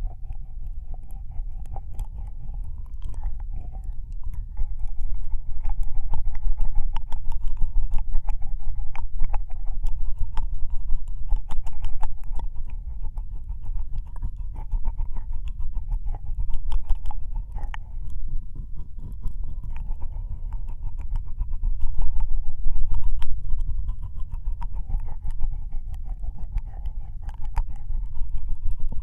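Wet ear-licking mouth sounds recorded close on a binaural microphone: a dense run of tongue and lip clicks and smacks. A steady low rumble runs underneath, and the clicking grows louder in stretches.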